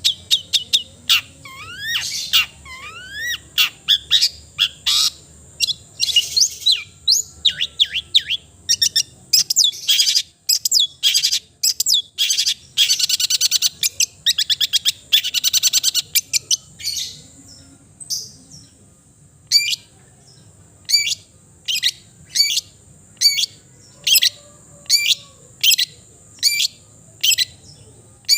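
Long-tailed shrike (cendet) singing a varied song stuffed with mimicked phrases. Rising whistled glides come early, a dense rapid warble around the middle, then a run of sharp single notes, a bit more than one a second, through the last third.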